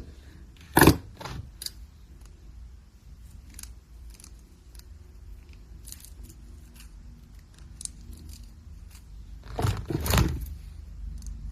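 Small metal jewellery parts and tools handled on a tabletop: light jangling and clicking of chain and metal pieces, with a sharp knock about a second in and a cluster of louder knocks near the end.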